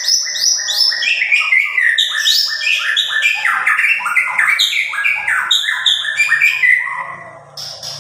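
White-rumped shama (murai batu) singing a loud, fast, unbroken run of short, downward-sliding whistled notes that fades about seven seconds in.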